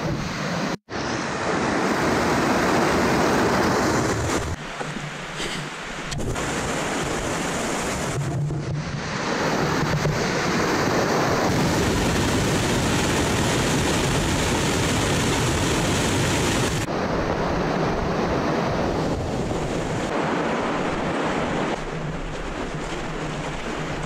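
Rushing water of a mountain creek and small waterfall: a steady, loud hiss, with a brief dropout about a second in and several sudden shifts in level and tone where the clips change.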